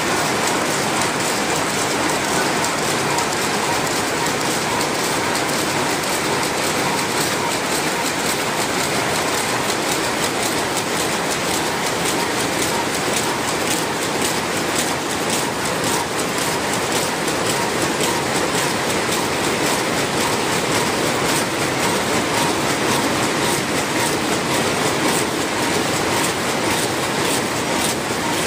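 Many weaving looms running together, weaving fiberglass insect-screen mesh: a loud, dense, steady mechanical clatter of rapid beats.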